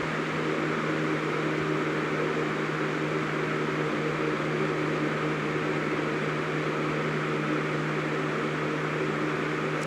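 Lakewood LBF2010A 20-inch box fan running on its medium speed: a steady rush of moving air over a constant motor hum.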